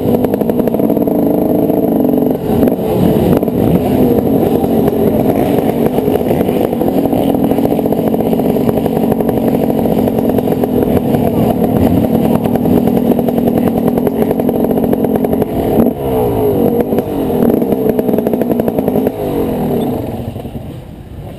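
Yamaha motocross bike's engine running at low speed as it is ridden slowly, revs rising and falling with the throttle. Near the end the engine drops off and the sound gets much quieter.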